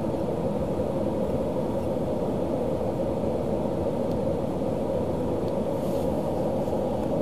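Steady, even low hum inside a parked car's cabin, with no change in level.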